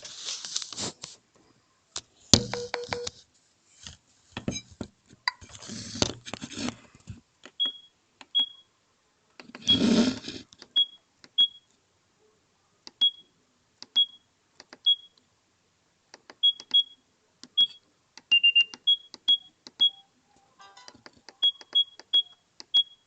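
Sagem my700X mobile phone keys being pressed: clicks and about twenty short, high keypad beeps at irregular intervals, one of them lower and longer about eighteen seconds in. A few brief noisy rustles within the first ten seconds.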